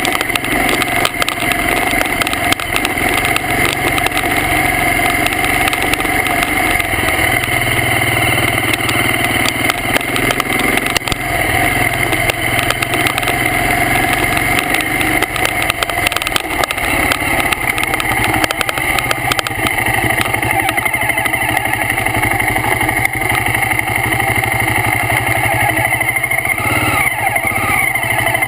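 BMW G650 Xchallenge's single-cylinder four-stroke engine running steadily as the motorcycle rides along a dirt trail.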